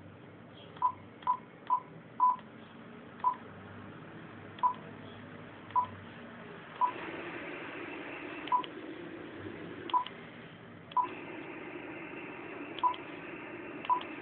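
Icom IC-9100 transceiver giving short single key beeps, about a dozen at uneven intervals, as its band buttons are pressed to step through the bands. Steady receiver hiss plays from its speaker and grows louder about halfway through as it lands on the HF bands.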